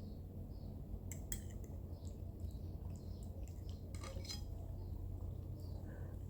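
Cutlery clinking and scraping against a plate while eating, with a few sharp clinks about a second in and again about four seconds in.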